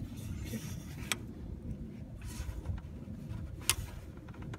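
Hand working at a Honda Accord's white plastic radiator drain valve (petcock) from under the car: two sharp clicks about two and a half seconds apart, with short bits of rustling, over a steady low rumble.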